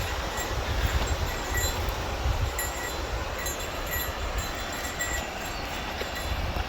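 Wind buffeting the microphone outdoors: a fluttering low rumble under a steady rushing hiss, with faint short high chirps now and then.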